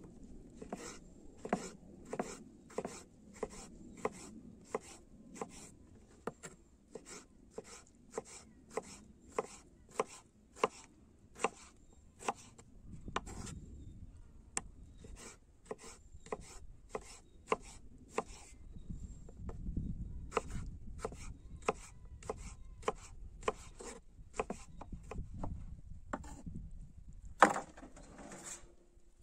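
Knife chopping food on a wooden cutting board in steady, even strokes, about one and a half a second, with one louder knock near the end.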